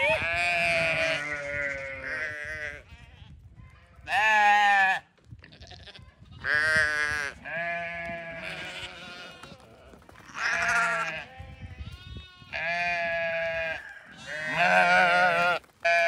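Sheep bleating again and again: about seven separate wavering calls, each under a second long, with a second or two between them.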